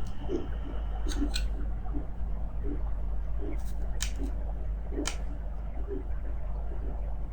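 Heartbeat pulses from a fetal Doppler and a woman's heartbeat, coming as soft repeated pulses over a steady deep low rumble of underwater ambience. A few sharp clicks come about a second in and again near four and five seconds.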